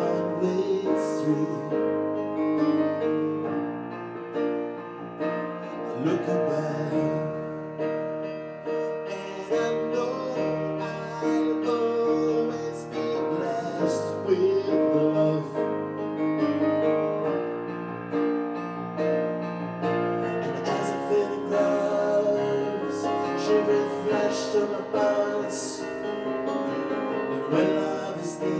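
Live music: a Roland RD-300NX stage piano playing sustained chords, with an acoustic guitar strumming along.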